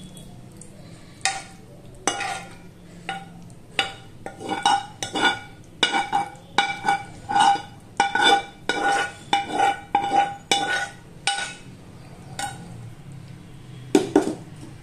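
Metal spoon scraping and tapping against a pan and a stainless-steel bowl while cooked noodles are transferred, each stroke giving a short ringing metallic clink. The strokes come irregularly, about one or two a second and busiest in the middle, with a couple of louder knocks near the end.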